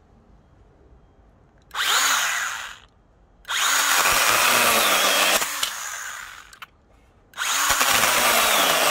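STIHL GTA 26 battery-powered mini chainsaw cutting into a square wooden batten in three runs of about one to three seconds each. Each run starts suddenly. The middle run drops to a lower level partway through.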